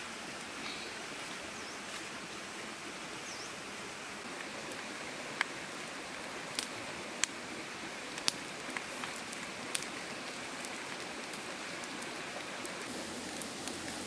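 A large whole fish grilling on wooden sticks over an open wood fire: a steady sizzling hiss with a few sharp crackles and pops from the fire, most of them between about five and ten seconds in.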